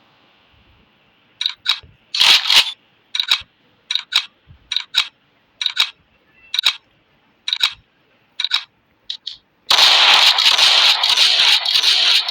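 A series of short, sharp metallic clicks and clacks, about a dozen spread over eight seconds, from handling a pump-action shotgun after a shot. A loud continuous rattling noise starts near the end.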